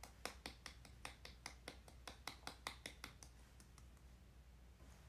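One person clapping lightly and quickly, about five soft claps a second, stopping about three seconds in.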